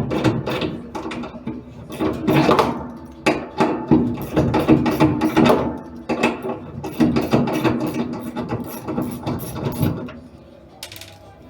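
Repeated mechanical knocks and clicks over a steady hum, from work on a washing machine's transmission.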